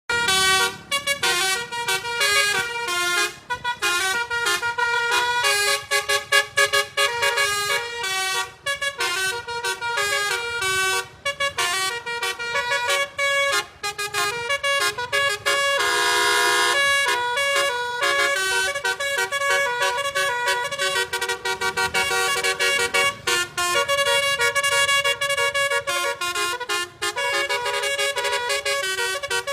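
Bus telolet basuri horn playing a tune as a rapid run of short stepped notes. About halfway through, a chord is held for about two seconds.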